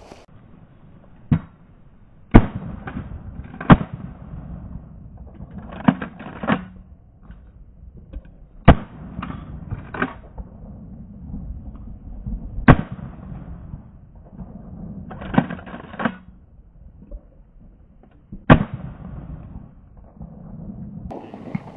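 A string of shotgun shots, about fifteen in all, some fired in quick runs of two or three, each followed by a short echo.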